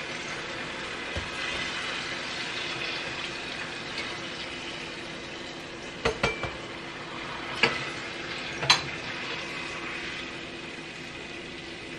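Egg rolls deep-frying in a pot of hot oil, a steady sizzle, with a metal slotted spoon clinking sharply against the pot a few times about halfway through.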